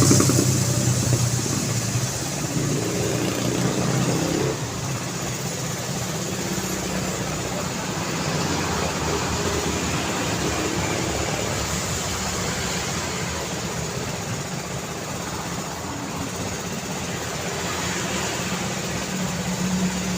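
Steady road traffic noise, with motor vehicle engines running close by. One engine hum is loudest at the start and fades after about four seconds, and another builds near the end.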